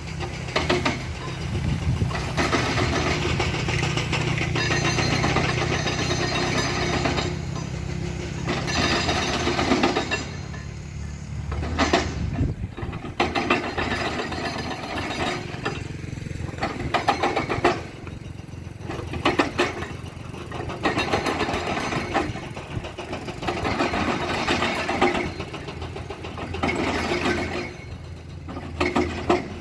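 Excavator diesel engine running under load, its revs rising and falling in repeated surges as it works, with occasional sharp metal clanks.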